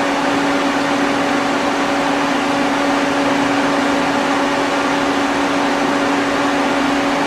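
Citizen M32 CNC Swiss-type lathe running with its live tools turning slowly at 200 RPM: a steady machine hum with a constant low tone.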